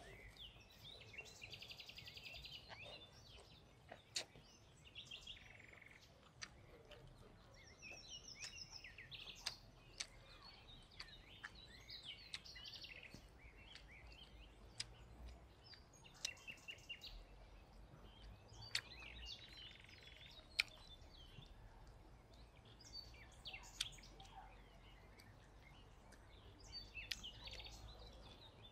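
Birds chirping and twittering, with a few sharp clicks scattered through, over a faint low background hum.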